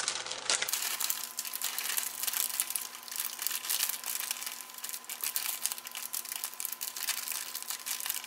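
Dense, steady crinkling and rustling as dark brown sugar is scooped by hand and dropped into a bowl of dry seasoning.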